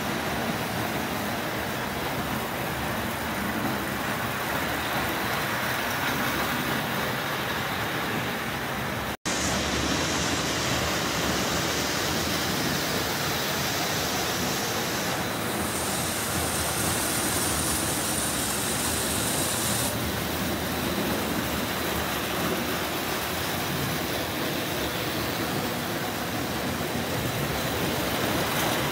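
Marx O27 toy electric trains running on three-rail track, a steady noise that cuts out for an instant about nine seconds in.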